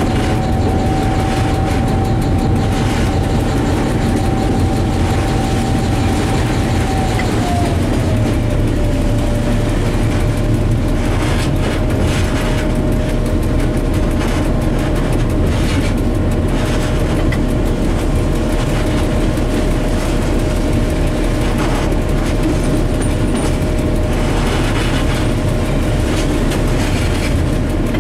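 Diesel locomotive running along the track: a steady engine rumble with a whine that drops in pitch about seven seconds in, and wheel clatter over the rails.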